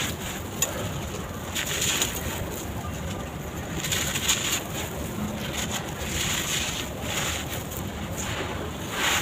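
Sand-cement bars crumbling and crunching, a gritty crackle that surges every second or two, with scattered sharp clicks.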